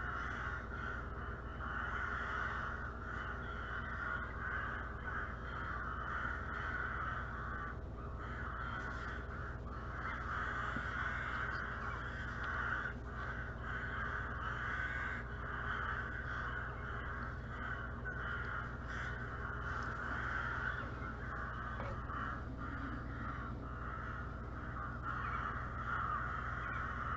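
Crows cawing, the calls running on with only brief breaks, over a steady low hum.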